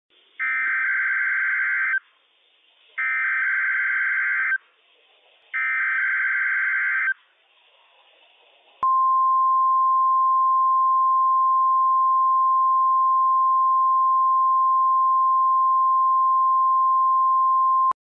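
NOAA Weather Radio emergency alert signal sent as a Required Weekly Test. First come three bursts of SAME header data tones, each about one and a half seconds long with a short gap between. About nine seconds in, the steady single-pitch 1050 Hz warning alarm tone starts and holds for about nine seconds.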